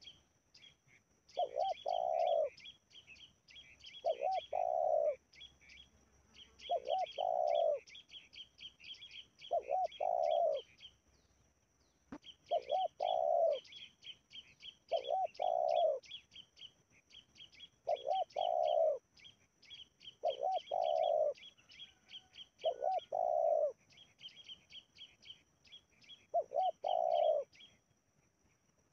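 Spotted dove cooing in repeated phrases, each two short notes and a longer rolling coo, about ten times at intervals of two to three seconds. This is the trained decoy dove calling to lure wild doves. Small birds chirp constantly behind it.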